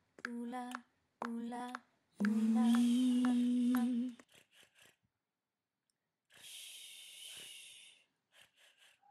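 A voice chanting two short sung syllables, then holding one long hummed note that rises slightly in pitch. After a pause comes a long breathy exhale, followed by a few short breaths.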